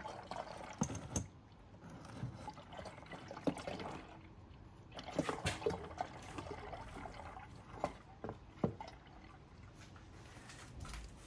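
Used automatic transmission fluid draining from the gearbox drain hole of a Mini Countryman Cooper D into a funnel. It is a steady trickle with irregular drips and small splashes. The fluid coming out is very black and dirty.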